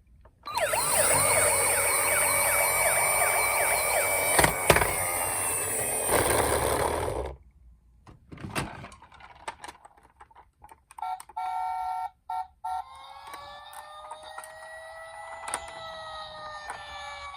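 Several toy minicar emergency vehicles' electronic sirens sounding at once, a loud overlapping tangle of fast-warbling and wailing tones that cuts off about seven seconds in. Then come a few scattered clicks and knocks, and a single quieter siren tone slowly rising and falling.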